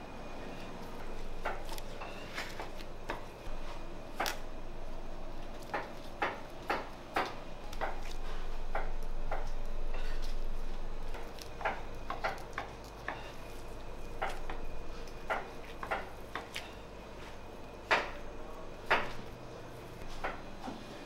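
Irregular light knocks and clinks of eggplant chunks and minced meat being set and pressed by hand into a round steel tray, over a steady low hum, with two louder knocks near the end.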